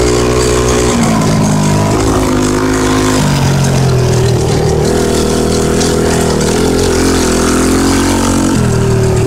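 Polaris ATV engine running as it is ridden, its pitch shifting up and down several times with the throttle.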